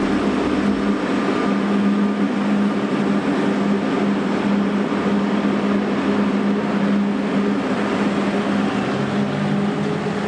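Small snow-sweeper vehicle with a front rotary brush running steadily, a constant low engine hum under an even rushing noise.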